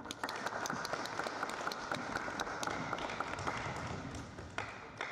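Tennis spectators clapping after a point has ended, a steady patter of applause that thins out and dies away near the end.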